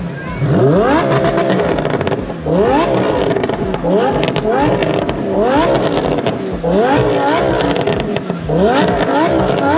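Supercar engines revving repeatedly. Each rev climbs sharply in pitch and then drops back, about every second or two.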